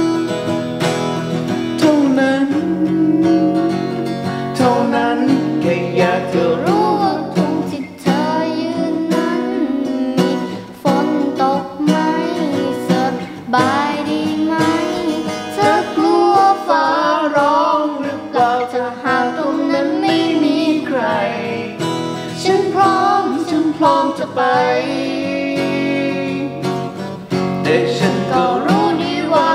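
Acoustic guitar strummed and picked, accompanying a girl singing a slow song.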